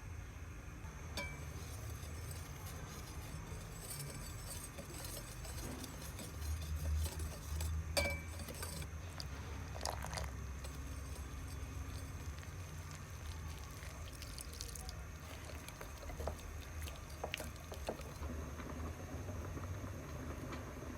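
Scattered clinks and knocks of kitchen dishes and utensils, a few louder near the middle, over a steady low hum.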